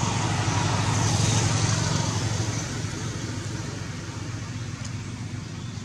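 A motor vehicle passing: engine drone and road noise swelling to a peak a second or two in, then fading away.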